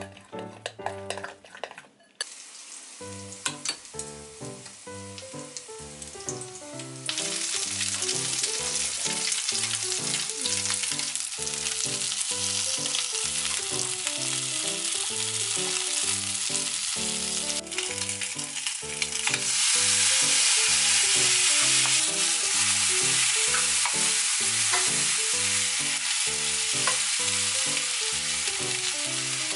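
Meat-stuffed green peppers sizzling in oil in a frying pan. The sizzle grows louder about seven seconds in and again around twenty seconds. Background music plays throughout.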